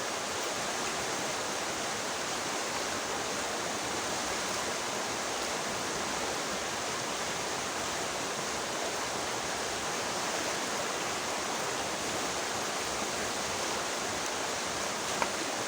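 River water rushing steadily, an even hiss like a stream or small weir running close by.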